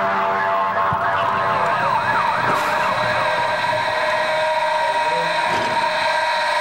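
Fire engine siren in a fast yelp, rising and falling several times a second, which fades out about three seconds in, leaving a steady held tone.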